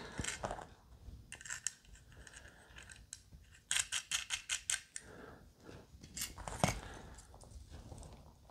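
Light clicks and clinks of small metal guitar wiring parts, potentiometers and a control plate, being handled on a bench, with a quick run of about seven clicks a little under four seconds in.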